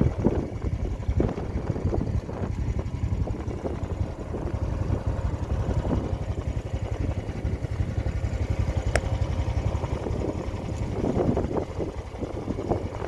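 Small tour boat's engine running steadily, a low, fast-pulsing rumble.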